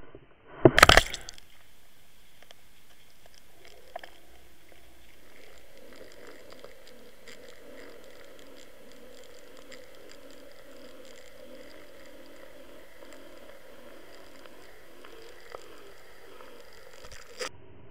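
Underwater water noise picked up by a Water Wolf underwater camera being pulled through the water: a brief loud churning burst about a second in, then a steady low rush of water past the housing with faint scattered ticks.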